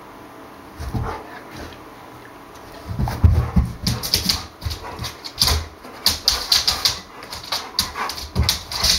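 A bullmastiff–rottweiler cross dog scrambling about on a laminate floor. From about three seconds in come rapid, irregular clicks of its claws, mixed with thuds of its paws.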